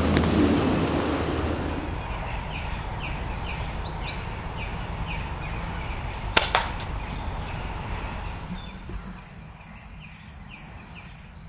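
A gust of wind dies away, leaving small birds singing repeated high trills. About six seconds in comes one sharp crack, followed a split second later by a second smack, as a pre-charged pneumatic air rifle fires and the pellet strikes.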